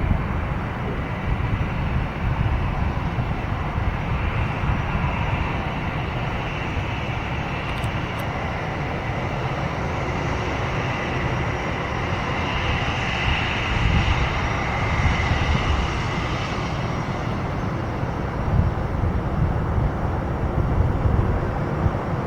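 Jet airliner engine noise: a steady rumble with a rising and falling whine that peaks about midway and then fades.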